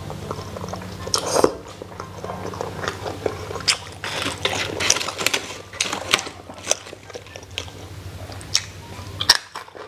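Close-miked mukbang eating sounds: a person slurping strips of hot pot food from a bowl and chewing with wet mouth clicks and smacks, in irregular bursts. A steady low hum runs underneath and stops shortly before the end.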